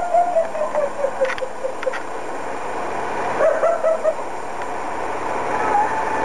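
Film soundtrack playing through a 16 mm projector's speaker, with no dialogue. A run of short pitched tones steps down in pitch, another cluster comes about three and a half seconds in, and held tones sound near the end.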